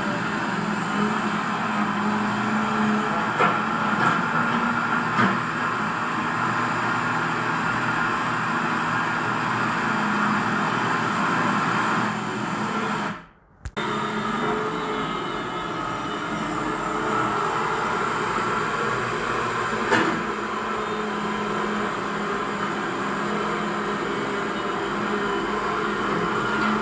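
RC model CAT 336D excavator running, its small electric motors and gears giving a steady whine with a few light clicks; the sound cuts out briefly about halfway through, then resumes.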